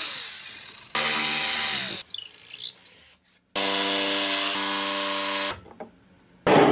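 Woodworking power tools in quick succession. A motor winds down, then a tool runs steadily for about a second. A rougher noisy stretch follows, then a motor runs steadily for about two seconds and cuts off. A loud knock comes near the end.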